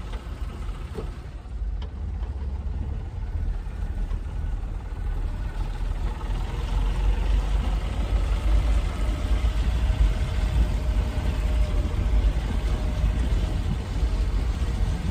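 Small car's engine running and road noise heard from inside the cabin while driving along, with a heavy low rumble, getting louder about six seconds in.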